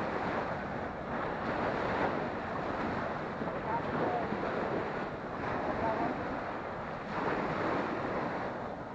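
Small sea waves breaking and washing up a sandy beach in repeated surges, with wind buffeting the microphone.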